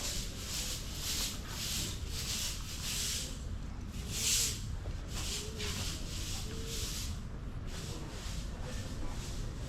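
Footsteps scuffing on gritty stone paving at a steady walking pace, about two steps a second, one step a little louder about four seconds in.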